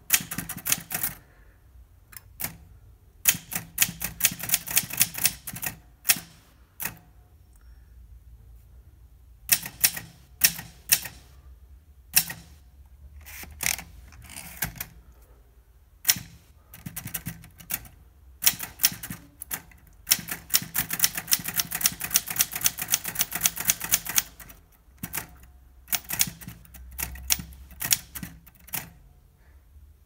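Olympia SM2 manual portable typewriter being typed on: sharp key and type-bar strikes in quick runs broken by short pauses, with one long, fast run about two-thirds of the way through.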